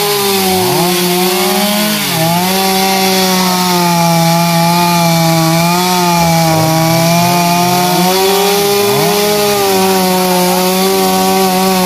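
Two-stroke gasoline chainsaw held at full throttle, cutting through logs of a fallen tree trunk. It runs with a steady high pitch, dipping slightly about two seconds in and again near the end.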